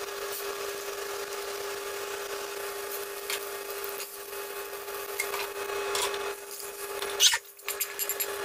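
Steady cooking hiss from a steel wok over a gas burner, with a constant hum underneath. Tongs click and scrape against the wok a few times, the loudest clank about seven seconds in.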